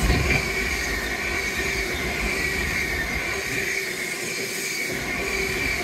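A train running past on the line, a steady rumble with a high whine held throughout and no horn.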